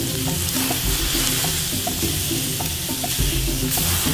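Beef steaks sizzling on fire-heated stones: a steady frying hiss. Faint background music plays underneath.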